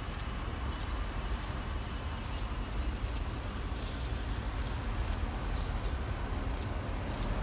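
SSR T class diesel locomotive approaching at low speed: a low, steady rumble that grows slightly louder. Faint regular ticks come about twice a second, with a couple of brief bird chirps.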